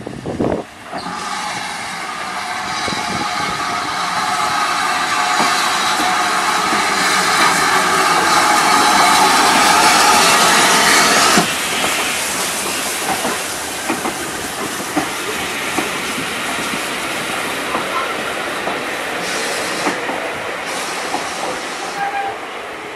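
Steam tank locomotive passing close by with a loud hiss of steam that cuts off suddenly about eleven seconds in, followed by its coaches rolling past with wheels clicking over the rail joints.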